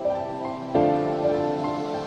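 Background music: soft sustained chords, with a new chord struck at the start and another a little under a second in.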